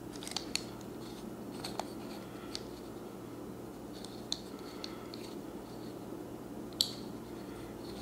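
Dial of a 1983 Slaymaker combination padlock being turned by hand, giving a few faint, irregular clicks and scrapes, one sharper click near the end. The dial turns stiffly, not smoothly. A steady low hum sits underneath.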